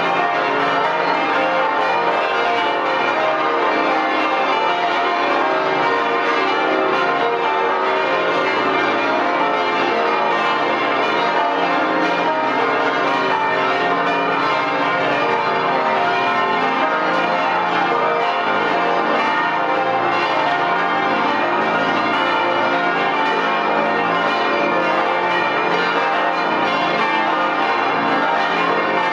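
A full peal of some twenty church bells swinging and ringing together, heard up close in the belfry. Their strokes overlap into a loud, continuous, unbroken clangour.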